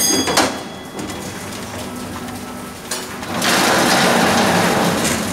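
Steel miners' cage travelling in a mine shaft: metal clanks at the start, then a steady rumble, and a loud rushing hiss from about three and a half seconds in.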